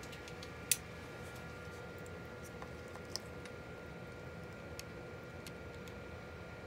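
A yellow snap-off utility knife is handled and set against the tape on a laptop battery pack, making one sharp click less than a second in and a few faint ticks later. A steady faint hum runs underneath.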